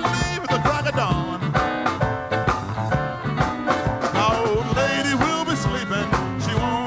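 A band plays an instrumental break in an up-tempo blues song: a lead instrument solos with bending notes over bass and drums.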